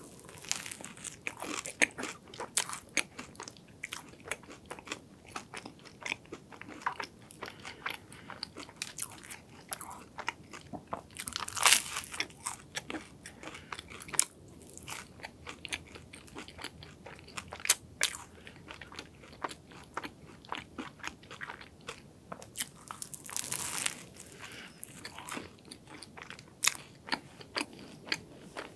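Close-miked biting and chewing of a crisp croffle (croissant waffle) topped with chocolate crunch pieces: a dense run of sharp crunches and crackles, with the loudest crunching bites about twelve seconds in and again about twenty-four seconds in.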